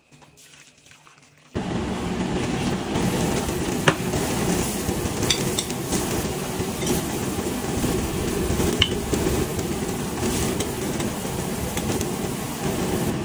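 Broth with rice boiling hard in a wide steel paella pan, a dense steady bubbling with scattered sharper pops, starting abruptly about a second and a half in after a much quieter moment.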